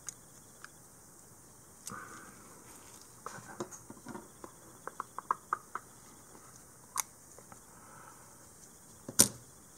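Small metal parts being handled: light clicks and taps from an aluminium grip frame and a screwdriver, with a quick run of small clicks about five seconds in and one louder knock near the end as a part is set down on the work mat.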